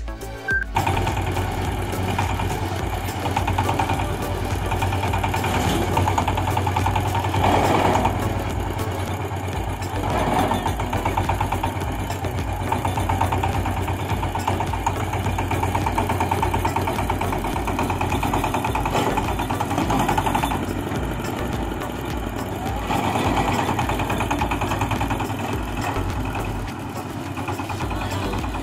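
Chinese diesel engine of a home-built boat tractor running steadily as the tractor is driven up ramps onto a flatbed truck, swelling a few times as the revs rise under load.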